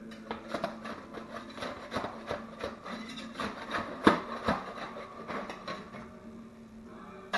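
Metal spatula scraping and tapping under a baked pizza crust on a metal pizza pan as the pizza is slid off onto a wooden cutting board: a run of short scrapes, the loudest about four seconds in.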